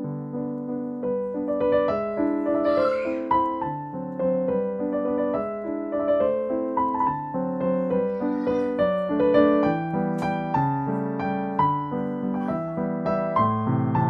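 Background piano music, a gentle melody of single notes over chords.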